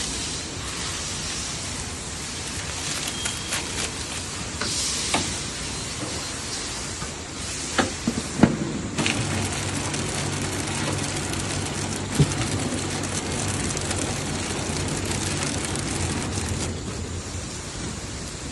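Steady machine and workshop noise with scattered knocks and clicks; about halfway through, a low motor hum starts, runs steadily for several seconds and stops near the end, as a paper cup packaging machine runs.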